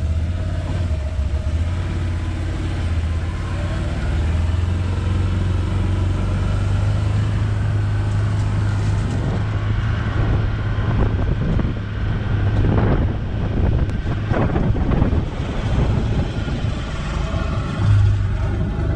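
Can-Am Defender side-by-side's Rotax engine running as a steady low drone, at low revs as the vehicle sets off and then driving along a rough dirt track. Uneven noise rises over the engine drone between about ten and fifteen seconds in.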